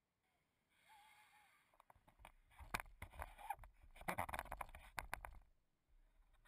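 Fiberglass hull of a radio-controlled boat knocking and scraping against shoreline rocks: a dense run of sharp knocks over a low rumble, lasting about three and a half seconds and dying away near the end.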